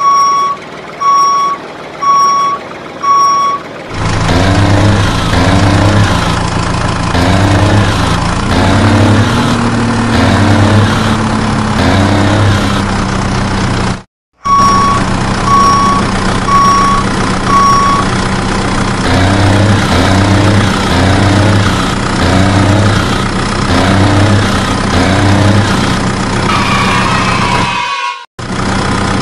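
Truck sound effect: a reversing alarm beeps about once a second, four times, then a heavy truck engine runs with a regular chugging pulse about once a second. After a brief dropout the reversing beeps come back four more times over the running engine.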